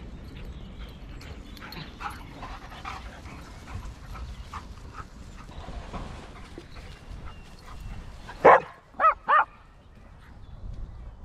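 Dogs at play, with a low scuffle of movement; about eight and a half seconds in, a dog barks three times in quick succession.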